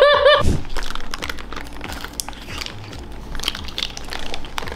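Aluminium foil around a giant Rice Krispies Treat crinkling as it is handled, in scattered small crackles. A brief pitched sound at the very start is the loudest moment.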